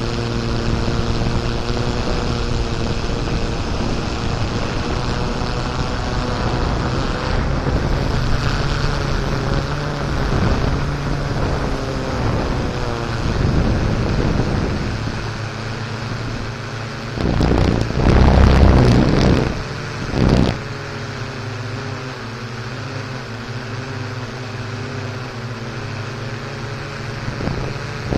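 Off-road vehicle engine running steadily, with wind buffeting the microphone. A few loud rough bursts of noise come a little past halfway.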